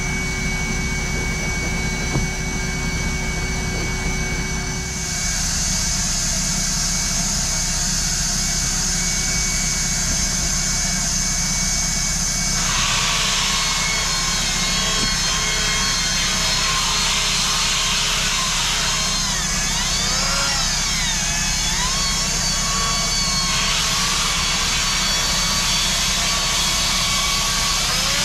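A corded power tool spinning a scrub brush against cloth seat upholstery: a steady motor whine from about five seconds in, joined from about halfway by the scratchy swish of the bristles on the fabric. The motor's pitch wavers as the brush is pressed and moved.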